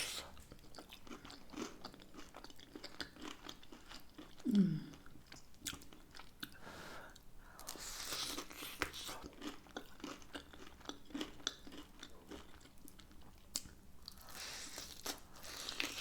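Close-miked chewing and biting into hot and spicy chicken wings: many small crunches and wet mouth sounds. A short low hum falls in pitch about four and a half seconds in and is the loudest moment.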